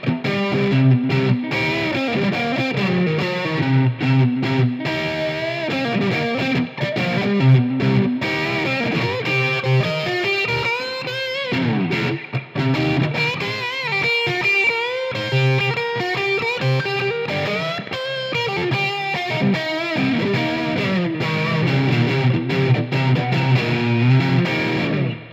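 Squier Made in Japan electric guitar played through the overdrive of a Marshall AVT amplifier: distorted riffs and lead lines, with some notes bent in pitch.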